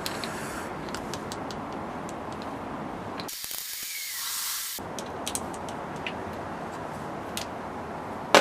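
Small metal and plastic clicks of tools and parts being handled while an RC car is taken apart, with a hiss of about a second and a half in the middle and one sharp, loud click near the end.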